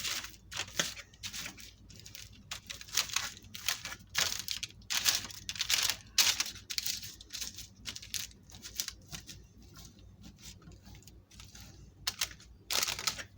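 A utensil scraping and scooping food out of cookware onto a plate in a run of short, irregular scrapes, busier at first, thinning out in the middle, with a louder cluster near the end.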